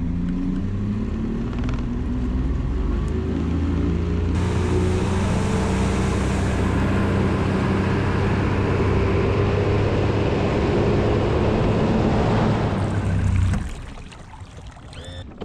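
Bass boat's outboard motor running steadily at speed, with a rushing noise of wind and water over it. The motor sound stops abruptly near the end.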